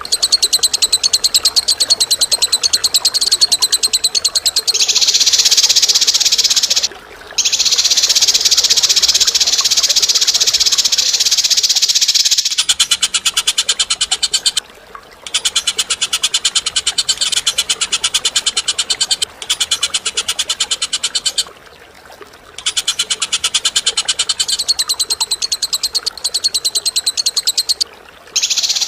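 Recorded birdsong of harsh, rapid rattling calls, fast ticking pulses repeated in long bouts with brief breaks, the kind of rough, sharp song used to tutor caged songbirds.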